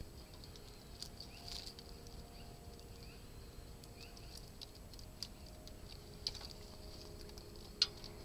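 Faint scattered ticks and scratches of a cat's claws on tree bark and a stepladder as it climbs down, with one sharper click near the end.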